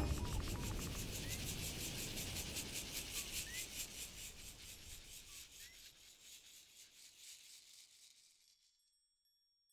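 Fast, even rhythmic rasping, like a shaker or scraper, with a low rumble underneath. It fades out gradually and dies away to silence near the end.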